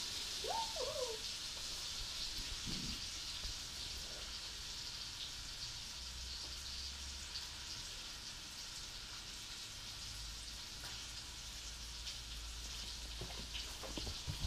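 Quiet, steady hiss of room tone, with a couple of short rising-and-falling squeaks between half a second and a second in, and a few faint ticks near the end.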